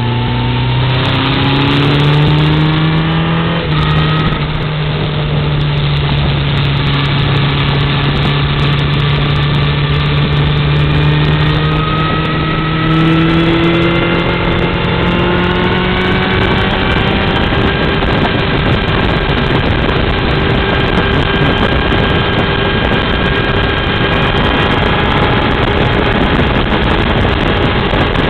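A vehicle's engine running at road speed, heard from on board under steady wind rush. Its pitch climbs slowly as it accelerates, and after about seventeen seconds the wind noise covers most of it.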